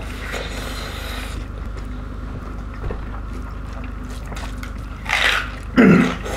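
Close-miked eating sounds: chewing and fingers working rice and curry on a plate, over a steady low hum. Two louder short mouth-noise bursts come near the end, the second the loudest.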